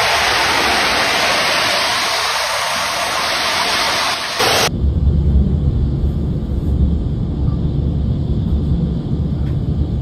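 Floodwater from a swollen mountain torrent rushing past, a loud steady hiss. About four and a half seconds in the sound changes abruptly to a deep low rumble with much less hiss.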